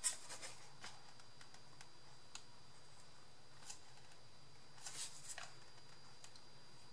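Light handling sounds of hot-gluing paper: scattered small clicks and brief rustles, a sharp click right at the start and a short cluster about five seconds in. A faint steady high whine lies underneath.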